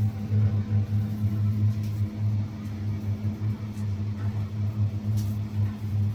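Electric chimney fan (smoke extractor) running with a steady low hum.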